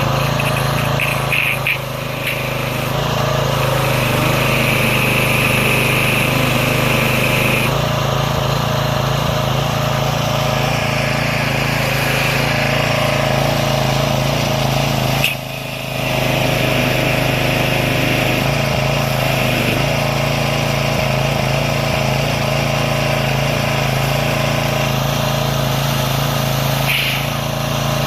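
Small gasoline engine of a pressure washer running steadily, with a brief dip in level about halfway through.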